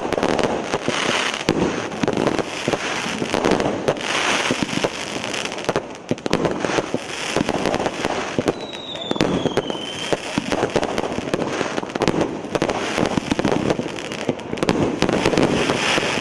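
25-shot consumer fireworks battery firing: a dense, continuous run of bangs, pops and crackles from the bursting shells. A brief high whistle falls slightly in pitch about nine seconds in.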